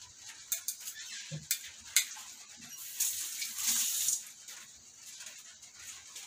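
Metal kitchen tongs clicking against a frying pan as fish are moved about in simmering broth: a few sharp clicks in the first two seconds, then a hiss lasting about a second around three seconds in.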